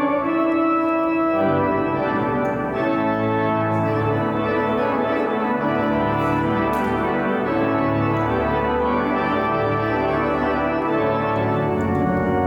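Church pipe organ playing slow, held chords during Mass, the chord changing about a second and a half in.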